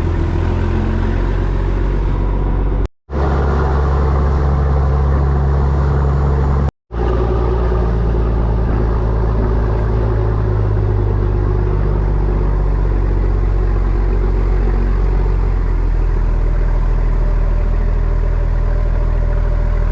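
Motorboat engine running steadily, a deep even rumble, cut off twice by brief silent gaps in the first seven seconds.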